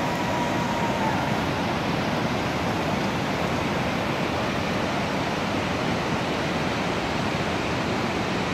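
Steady rushing of a glacial river running through the rocky gorge below, an even noise with no rhythm. A faint high held tone lasts about a second at the start.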